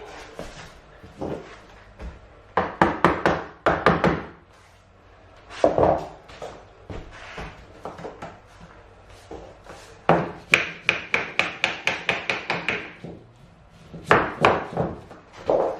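A hammer tapping click-lock cork floor planks to seat their joints, in groups of sharp knocks. Near the end comes a quick run of about a dozen blows with a ringing note.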